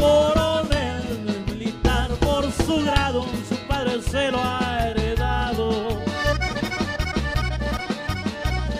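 Background music: Latin American music with an accordion playing the melody over a pulsing bass and a steady beat.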